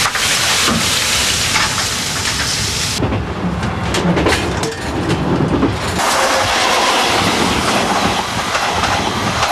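Twilight Express sleeper train running along the rails with a steady rushing noise. The sound changes suddenly twice: about three seconds in it drops to a duller stretch with some clicks, and about six seconds in the full rush returns.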